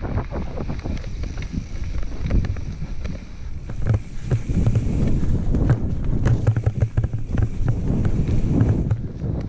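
Mountain bike riding fast down a rocky dirt singletrack: tyre rumble with the rattle and knock of the bike over rocks and roots, and wind buffeting the microphone. It gets louder and rougher about four seconds in.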